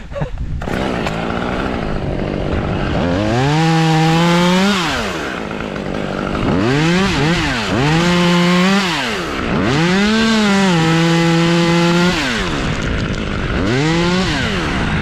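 Two-stroke chainsaw throttled up from idle to full revs and back, about four times. Each time it holds high for a second or two, as in cutting wood.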